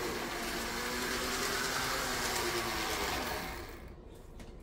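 Model train running on the track, its locomotive's small electric motor humming steadily with wheel noise, then dying away about three and a half seconds in as the train is brought to a stop.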